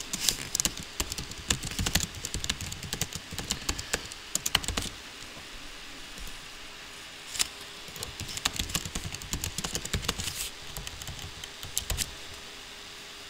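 Typing on a computer keyboard: quick runs of key clicks, a pause of about two seconds near the middle, then more typing.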